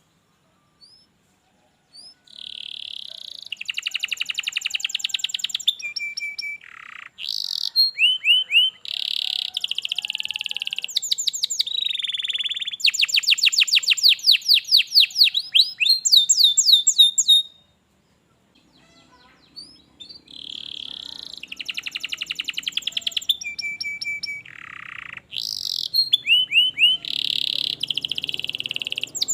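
Canary singing a long, fast song: rolls of rapidly repeated notes, quick falling sweeps and high whistled notes, broken by short pauses. It falls silent for about two seconds at the start and again a little past the middle.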